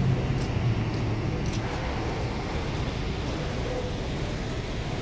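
Road traffic: a vehicle's engine hum fades away in the first second or so, leaving a steady wash of traffic noise.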